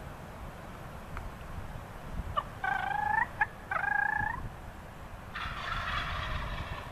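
Wild turkey gobbling: a rattling call about a second and a half long near the end. Two short, clear calls come before it, each about two-thirds of a second long.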